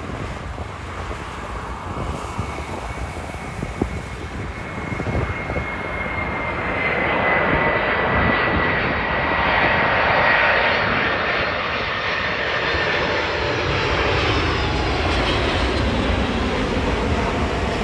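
The four jet engines of a Boeing 747-400 freighter on final approach and flare. The roar grows louder over the first half as the jet nears, and a high whine slowly falls in pitch.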